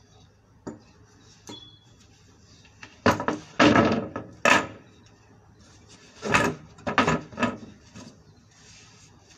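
Plywood table top being set onto its wooden frame and knocked into place: a cluster of wooden knocks and bumps about three seconds in, then a second round about six seconds in.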